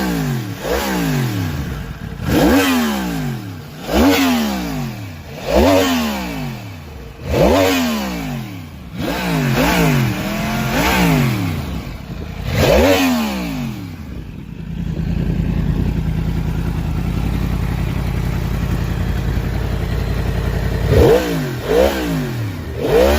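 Stock 2022 Yamaha MT-10's crossplane inline-four blipped again and again through its stock exhaust, each rev rising sharply and falling back. About eight revs in the first half, a steady idle of several seconds, then three quick blips near the end.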